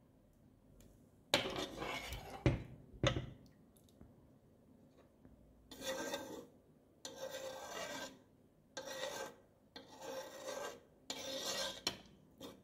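A metal spoon stirring thick walnut stew, rasping and scraping across the bottom of a stone-coated pan. A few strokes come about a second in, then a longer run of separate strokes from about halfway.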